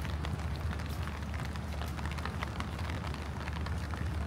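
Steady rain, with many small drops ticking close by at an irregular pace, over a low steady rumble.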